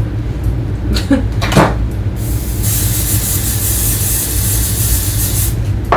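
Aerosol hair spray can hissing in one continuous spray of about three seconds, after a couple of short taps.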